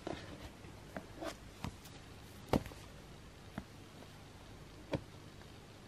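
Hands handling glossy booklets and cards on a wooden table: a scattering of light taps and clicks, about six in all, the loudest about two and a half seconds in.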